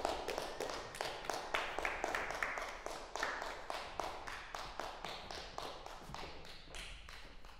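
Audience applauding: dense clapping that slowly grows quieter toward the end.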